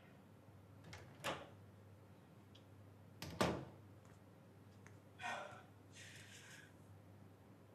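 Quiet room with a few soft knocks, the loudest about three and a half seconds in the thud of a door.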